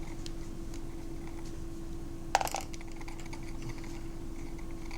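A small tool working a metal tab on a compact camera's screen frame: one sharp metallic click about two seconds in, with a few faint ticks, over a steady low hum.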